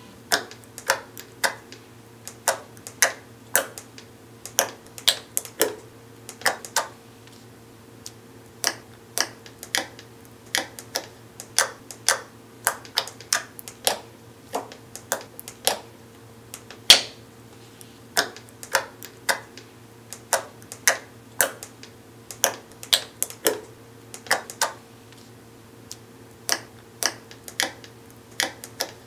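Clear slime being squeezed and pressed so that it gives off sharp pops and clicks, one after another in rhythmic phrases with short pauses, tapped out like the rhythm of a song. A faint steady hum lies underneath.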